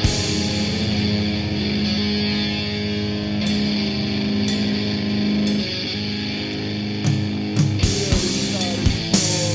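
Recorded hardcore band music: guitar holding sustained, ringing chords with no drums, then drum hits come back in about seven seconds in.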